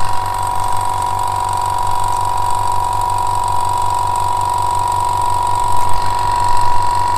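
Iwata Studio Series airbrush compressor running, charging its small 2-litre air tank: a steady hum with a constant high whine.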